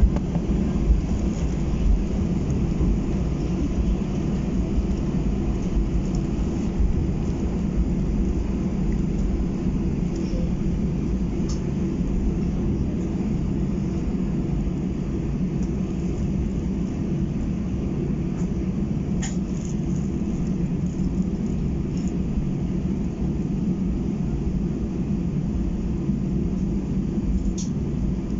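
Steady engine and air rumble inside the cabin of an Airbus A319 airliner, with a few faint clicks.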